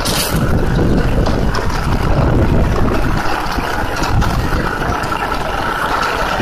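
Diesel engines of a Kubota MU4501 and a John Deere 5055 tractor running steadily under load, each driving a rotary tiller through dry soil, the Kubota closest.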